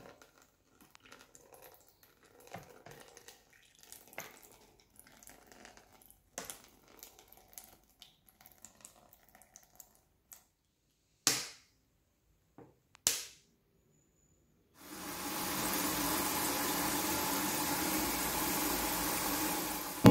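Chilled alcohol vinegar poured from a plastic bottle into a plastic tub: faint, uneven splashing and trickling. Two short, louder sounds follow, then a steady rushing noise for the last five seconds or so.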